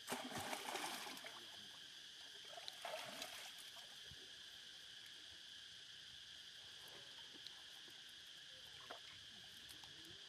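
Faint, steady high-pitched drone of insects. Two short noisy bursts break through, one at the start and another about three seconds in.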